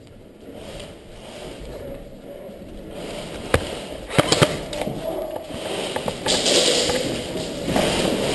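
Airsoft gun firing single shots: three sharp cracks, one about halfway through and two in quick succession about half a second later.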